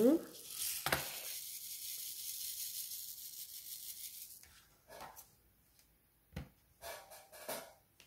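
Transparent resin diamond-painting drills shaken in a plastic drill tray: a steady granular rattling hiss lasting about four seconds that stops abruptly, followed by a few light taps.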